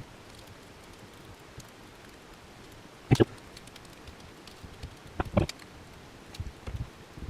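Small steel bearing balls and the metal carriage of an HGR20 linear rail clicking and tapping as balls are fitted one by one into its ball tracks: a few sharp clicks about three seconds in and again about five seconds in, with faint ticks between.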